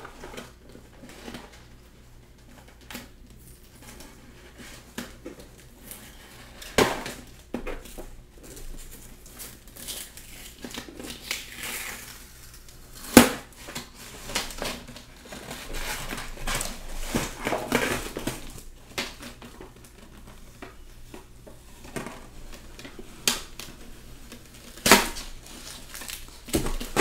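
Cardboard shipping box being worked open by hand: scraping and crinkling of cardboard, with a few sharp snaps or knocks, the loudest about halfway through.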